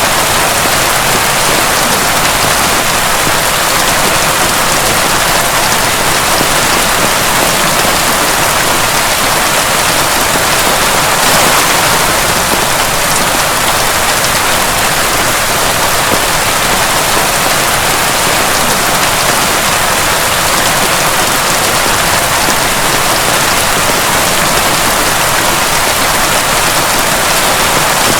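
Heavy, pounding rain falling steadily: a loud, dense, even hiss of countless drops that hardly changes.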